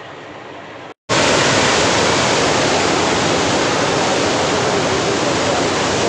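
Loud, steady rush of water from Dhuandhar Falls, where the Narmada River plunges in forceful flow; it starts abruptly about a second in, after a brief silence.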